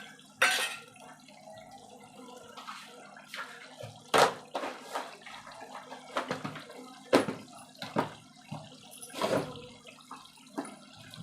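Onion-garlic masala paste sizzling and bubbling in hot oil in a kadhai while its water cooks off, with a spoon scraping and knocking against the pan several times, the loudest knock about four seconds in.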